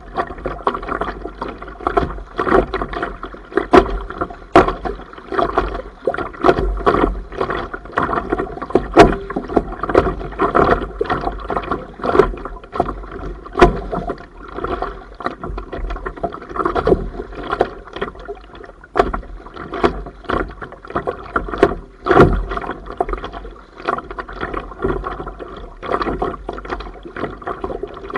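Kayak moving through choppy sea water, with waves slapping and splashing against the hull at irregular moments, over a low rumble of wind on the microphone.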